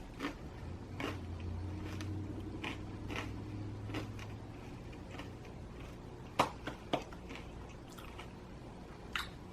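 Close-up chewing of extra-crispy pizza crust: wet mouth sounds with a few sharp crunches, two of them about two-thirds of the way through and one near the end. A low hum runs under the first few seconds.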